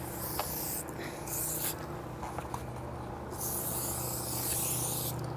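Aerosol can of tire fitting spray hissing in three bursts, the last one the longest, as lubricant is sprayed onto the tire bead and rim.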